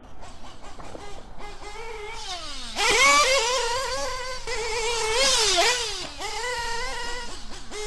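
Nitro RC buggy engine, a Novarossi in a Losi 8ight, revving up and down as the buggy laps the track. Its high raspy note dips and climbs again and again, with a sharp, loud climb about three seconds in.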